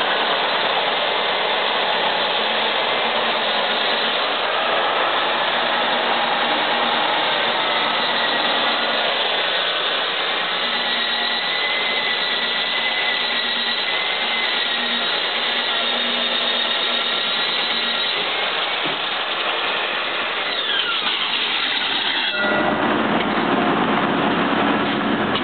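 Weka DK32 electric core drill running steadily, its diamond core bit grinding into concrete, a dense whine and grinding noise with faint wavering tones. About 22 seconds in the sound changes suddenly and becomes heavier and deeper.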